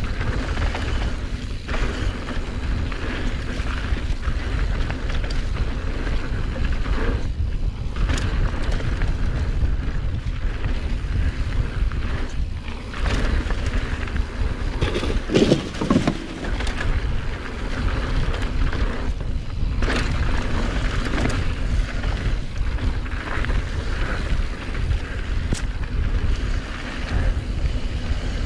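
Mountain bike riding fast down a dirt flow trail: wind buffeting the action camera's microphone over the steady rumble of tyres and bike on the ground, with a brief louder jolt about halfway through.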